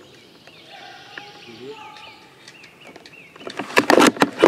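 Small birds chirping, one short call repeated over and over. About three and a half seconds in, a loud burst of sharp clicks and rustling close to the microphone takes over.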